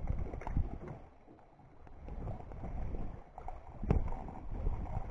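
Wind buffeting the microphone with small waves lapping against the dock, and one sharp knock about four seconds in.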